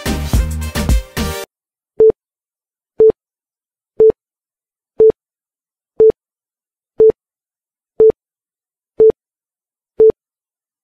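Background music that cuts off suddenly about a second and a half in, then a workout interval timer's short electronic beeps, one each second, nine in all, all at the same mid pitch.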